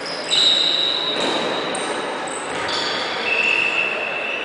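Athletic shoes squeaking on the sports-hall court floor as handball players run, cut and stop: several long high squeaks at different pitches, overlapping, with a dull thud about a second in.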